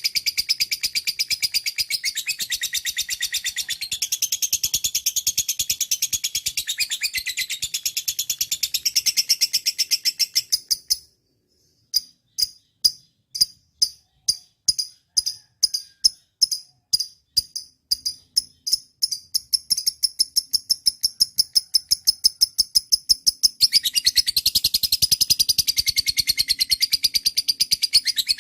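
Lovebird chattering: a long, fast run of high, repeated chirps. It breaks off briefly about eleven seconds in, comes back as single chirps that speed up into a continuous chatter again, and grows denser near the end.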